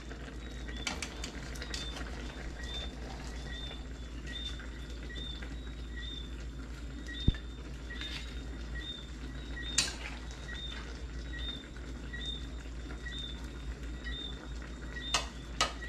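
A pan of fish stew simmering on the stove while a metal spatula clinks against the pan and a plate a few times as the fish is served. A faint high chirp repeats about twice a second throughout.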